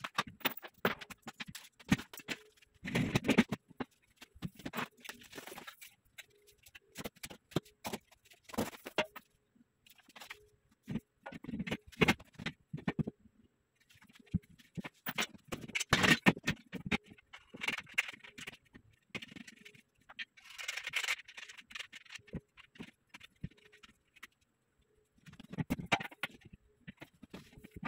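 Steel bed-frame rails and legs knocking, clanking and scraping against each other and on a wooden floor as the frame is put together: irregular knocks with a few longer scrapes.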